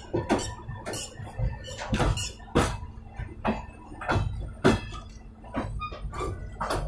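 Railway coach wheel running on the rail at speed, heard from right beside the wheel and brake gear: a low rumble broken by short, sharp metallic squeaks and clicks, about two a second at uneven spacing.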